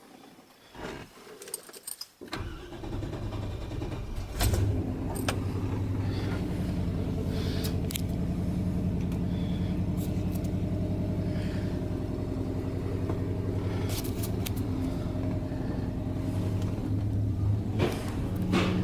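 A few light clicks, then a pickup truck's engine starts about two seconds in, picks up briefly a couple of seconds later and settles into a steady idle.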